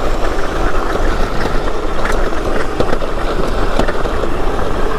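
Ride noise of a Razor MX650 electric pit bike moving fast over a gravel dirt road: steady wind rumble on the microphone and tyres rolling over loose gravel, with scattered clicks of small stones.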